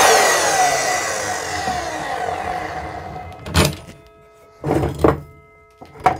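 Evolution R255SMS 10-inch multi-material sliding miter saw winding down just after cutting through quarter-inch steel square tubing: the motor and carbide-tipped blade coast to a stop, the pitch falling away over about three seconds. Then come a few knocks, the first about three and a half seconds in and two more near the end.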